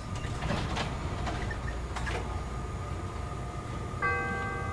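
Steady hum of a stopped CTA 'L' rail car with a few light clicks, then about four seconds in the door-closing chime sounds its first note, the warning that the doors are about to close.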